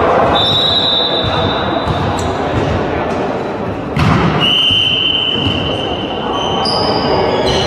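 Volleyball rally in a reverberant sports hall: players' voices and movement on the wooden court, with a sharp hit of the ball about four seconds in. Two long, high, steady tones sound over it, a short one near the start and a longer one just after the hit.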